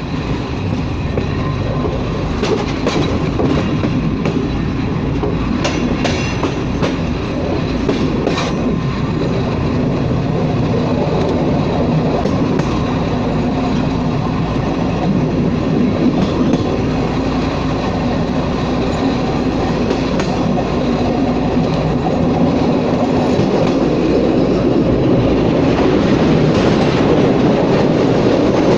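Passenger train running through a station with a steady rumble and engine hum. Its wheels clatter over rail joints in a run of sharp clicks a few seconds in, and the sound grows a little louder near the end.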